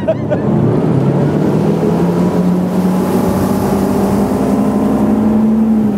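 Ski tow boat's engine opening up at full throttle for a deep-water slalom start, pulling the skier up out of the water. Its pitch rises over the first second or two, then holds steady at speed.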